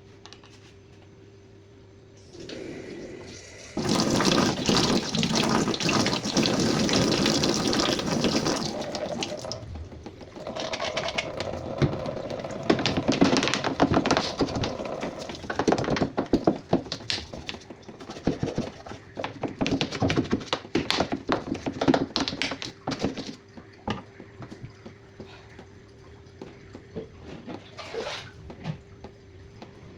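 Water running hard from a tap for about six seconds, then irregular splashing and knocking as something is rinsed and scrubbed under the stream, which dies down to occasional clicks and drips near the end.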